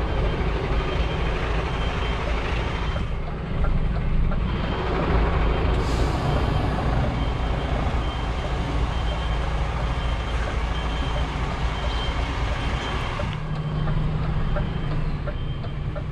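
A 20 m truck's diesel engine running as it reverses, with its reversing alarm beeping in a steady repeating pattern. A brief hiss of air cuts in about six seconds in.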